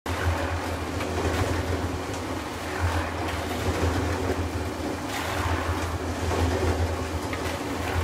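Concrete mixer running: a steady low machine hum with a continuous rushing, churning noise over it.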